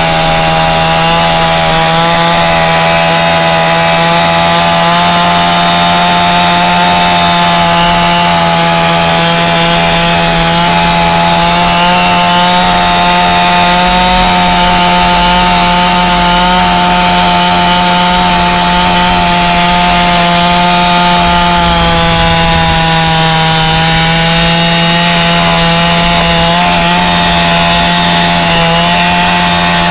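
Two-stroke chainsaw running hard at a steady, high engine pitch while cutting wood. Its chain has lost its edge and is dull.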